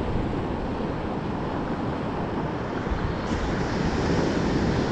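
Ocean surf washing up the beach, with wind buffeting the microphone as a steady low rumble.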